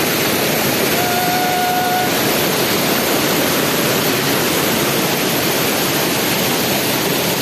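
Waterfall rushing, a loud, steady roar of falling water close by. About a second in, a short steady whistle-like tone sounds over it for about a second.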